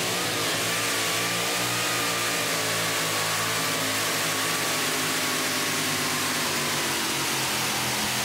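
Supercharged 575 cubic-inch engine of a modified two-wheel-drive pulling truck, with a 14-71 blower, running flat out under load as it drags the sled. The pitch sags slowly over the pull.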